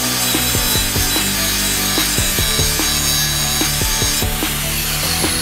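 Angle grinder sharpening a steel riding-mower blade: a steady high-pitched whine with a grinding hiss as the disc works the cutting edge. The whine drops in pitch over about the last second.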